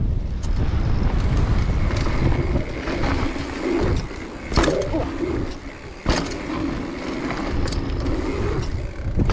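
Mountain bike rolling fast over a dirt trail: steady tyre rumble and wind buffeting the microphone, with a few sharp knocks from bumps and landings, the clearest about four and a half and six seconds in.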